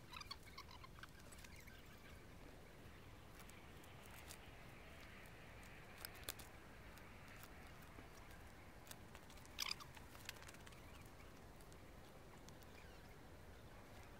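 Near silence: a faint steady outdoor background broken by a few soft clicks, a small cluster at the start, one about six seconds in, and a brief sharper tick near ten seconds.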